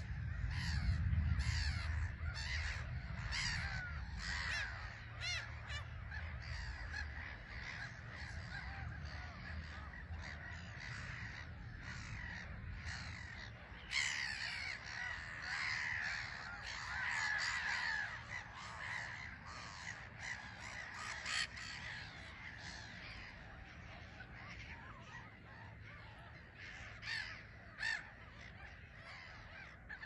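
A black-headed gull colony calling: a steady chorus of harsh, overlapping calls, busiest near the middle.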